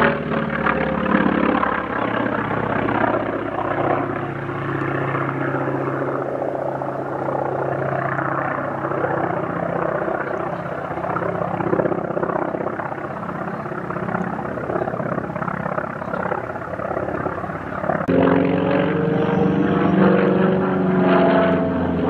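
Radial piston engines of WWII Navy fighters flying a display, a steady engine drone whose pitch falls in the first seconds as one passes. About eighteen seconds in the engine sound changes abruptly to a louder, higher note.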